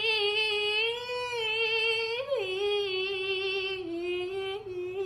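A high voice holding one long sung note with vibrato, wavering slightly and stepping down a little in pitch about two and a half seconds in.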